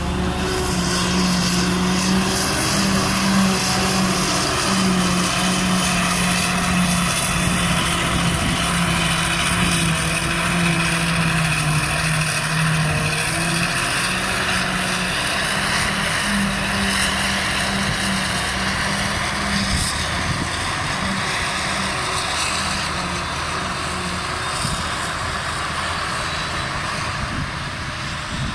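JCB Fastrac tractor driving with a Brantner Powertube silage trailer in tow: a steady diesel engine note under a broad rush of tyre and wind noise. About two-thirds of the way in, the engine note breaks up and the sound eases off a little.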